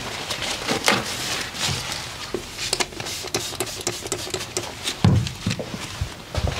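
Close-up handling sounds of hands working on a person's body: irregular taps, pats and rubbing strokes, with a heavier low thump about five seconds in.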